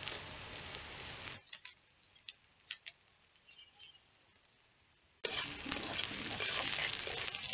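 Chopped onions sizzling in hot oil in a wok while a metal spatula stirs them. The sizzle drops out about a second and a half in, leaving a few light clicks, and comes back loud about five seconds in.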